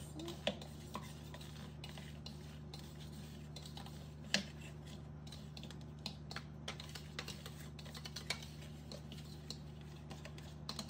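A spoon stirring buttered biscuit crumbs in a plastic food-chopper bowl, with irregular light clicks and scrapes as it knocks against the plastic and the centre spindle, one sharper tap about four seconds in.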